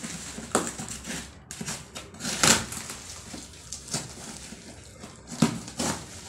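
Cardboard shipping box being opened by hand: scattered scrapes, rustles and knocks of cardboard flaps and packing tape, with the loudest one about two and a half seconds in and two more near the end.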